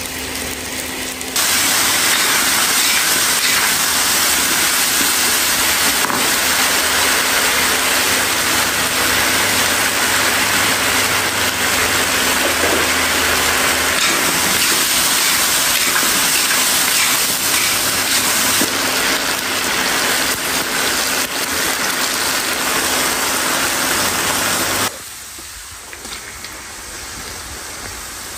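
Steady loud hiss of potato cubes frying in oil in a large wok, with a low steady hum underneath. It cuts off abruptly near the end, leaving a quieter hiss.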